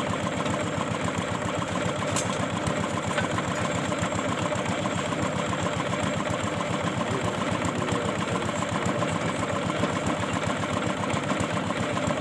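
Engine of a tube-well water boring machine running steadily, with a fast, even beat.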